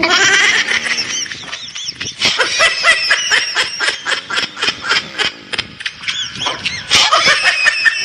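High-pitched laughter in quick rising-and-falling bursts, several a second, with a louder burst about seven seconds in.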